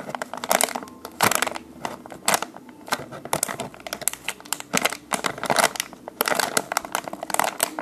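Soft foam ice cream squishy being squeezed and handled, giving crinkling, crackling clusters that come and go.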